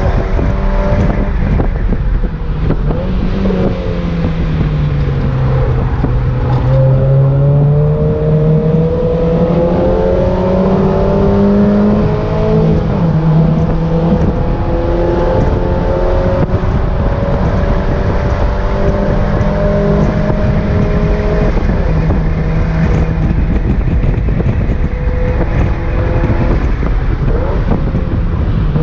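Mazda MX-5 NA's stock 1.6-litre four-cylinder engine with a BBK cat-back exhaust, pulling at speed, heard from inside the open-top cockpit with wind noise. The engine note falls a few seconds in, climbs again over several seconds, then holds fairly steady.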